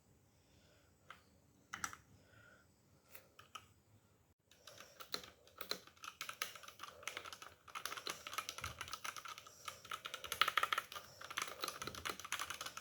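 Typing on a ZIFRIEND KA6406 mechanical keyboard: a few scattered key presses, then fast, continuous typing from about four and a half seconds in.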